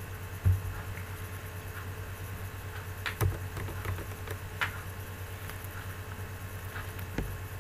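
A few scattered sharp clicks from the computer keyboard and mouse while text is being deleted, over a steady low hum.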